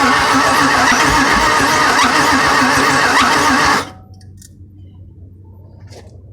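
2002 Ford Mustang GT's 4.6-litre V8 cranking on the starter with a steady pulsing whir for a little under four seconds, then cutting off without the engine catching: a no-start.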